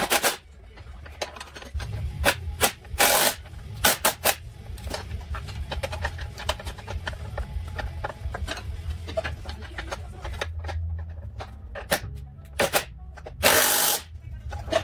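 Cordless impact wrench run in short bursts, four of them, the longest near the end, on the front lower control arm bolts. Small metal clinks come between the bursts, over a low steady hum.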